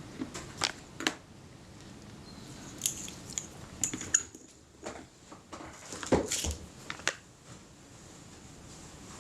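Small clicks, taps and light scraping from hands handling a camera body and small tools or a bottle at a workbench: about a dozen sharp ticks scattered unevenly, with a short cluster a little after six seconds.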